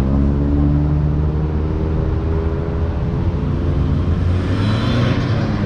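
Highway traffic passing close by: car engines and tyres making a steady, loud low rumble, with a little more high-pitched road noise near the end.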